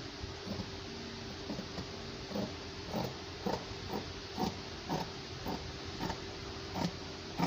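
Fabric scissors cutting through cloth, the blades closing in a steady rhythm of about two snips a second from a couple of seconds in, over a faint steady hum.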